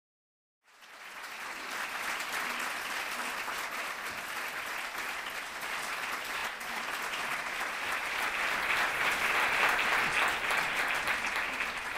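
Audience applauding: dense, even clapping that starts out of silence a little under a second in and swells somewhat louder in the second half.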